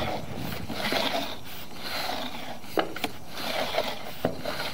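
Sewer inspection camera and its push cable being pulled back through the line, giving an irregular rubbing and scraping with a few sharp clicks late on.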